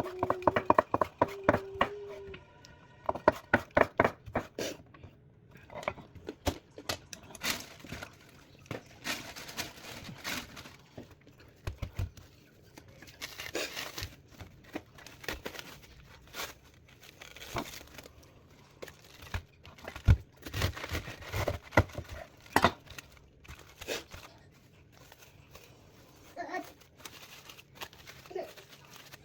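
Kitchen food preparation: a quick, even run of knife chops on a cutting board in the first few seconds, then irregular crinkling, rustling and tapping, like packaging being handled.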